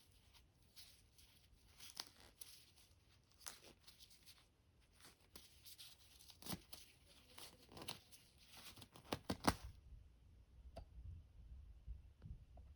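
Faint rustling and scattered sharp clicks of hands handling plastic vacuum cleaner parts, stopping about nine and a half seconds in.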